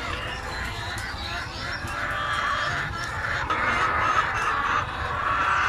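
A large flock of egg-laying chickens clucking and calling over one another in a continuous din, with a low rumble underneath.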